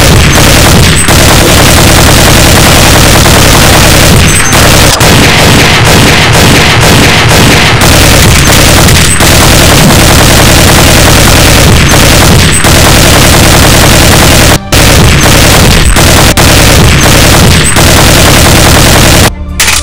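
Sustained, very loud automatic-gunfire sound effect, a dense rattle of shots, with a brief break about three-quarters of the way through; it cuts off just before the end.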